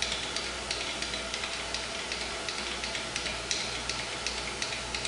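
Supra 618 surface grinder running with its grinding wheel spinning, a steady hum under a run of light, evenly spaced ticks about three a second, as the wheel head is raised by hand.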